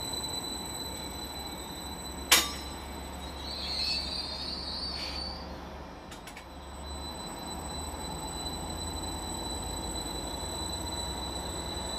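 Greater Anglia Class 755 multiple unit pulling away from the platform, a steady low rumble of the train with a faint high squeal a few seconds in. A single sharp click about two seconds in.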